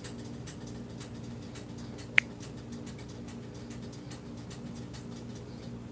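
Faint scattered ticks of fingers working the plastic cap of a spice jar, over a steady low hum, with one short sharp ping about two seconds in.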